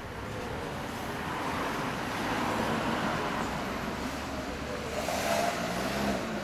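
Road traffic: engine and tyre noise from passing vehicles that swells and fades, loudest as a vehicle passes about five seconds in.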